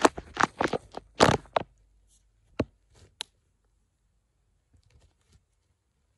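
Small plastic toy animals clicking and scraping against each other as a hand rummages through a pile of them: a quick flurry of clicks in the first two seconds, then two sharp clicks, then a few faint ones.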